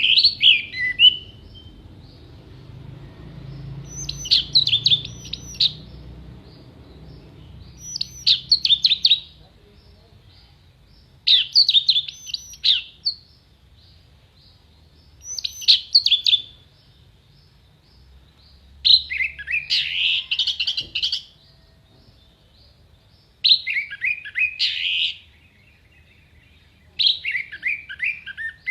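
Orange-headed thrush (anis merah) singing in short, sharp, rapid phrases, eight of them, one every three to four seconds with quiet pauses between.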